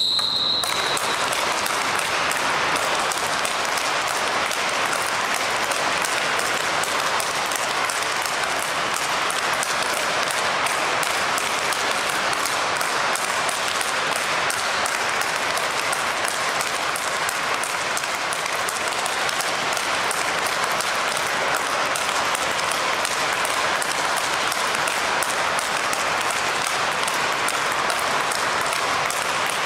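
Continuous, even clatter of clapping mixed with rapid sharp racket strikes on a tethered speedball ball. A short high beep sounds right at the start.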